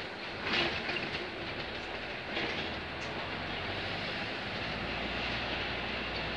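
Double-decker bus on the move, heard from inside: the engine runs with a low hum while the body and fittings rattle now and then.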